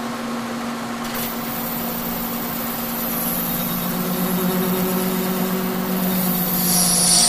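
A Kearney & Trecker 2HL milling machine running as a lathe, its spindle turning a bar of Aquamet 22 stainless while a carbide tool takes a light turning pass meant to clear out chatter. Steady machine hum with the cut, slowly getting louder, and a high-pitched ring that grows near the end.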